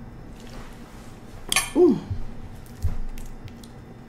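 A metal fork clinking and scraping in a glass baking dish of food, with one sharp clink about a second and a half in. Right after it comes a short falling hum of voice, and a soft knock follows about a second later.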